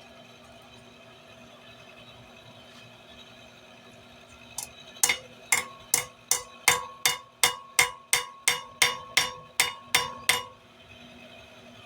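Hand hammer striking steel stock on an anvil, about fifteen ringing blows at roughly three a second, starting with a light tap about halfway in, flattening the bar for a rifle sight. A steady faint hum runs underneath.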